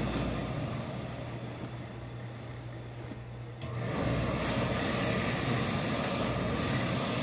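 Tailor's steam iron pressing a trouser seam: a low steady hum, then about three and a half seconds in a steady hiss starts suddenly as the iron goes back down onto the fabric.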